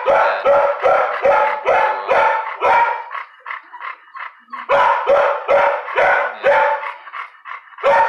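Shelter dog barking repeatedly in a quick, even run of about two to three barks a second, pausing for about a second and a half midway before barking again.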